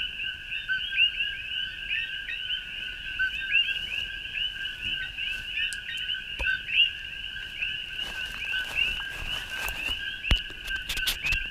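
Dense night chorus of many coquí frogs, their overlapping two-note "co-kee" calls forming a steady din, the second note sweeping upward. A few sharp pops from a small campfire near the end.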